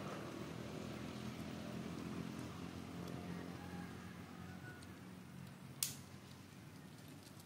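Low, steady motor hum, like a distant engine, slowly fading out, with one sharp click almost six seconds in.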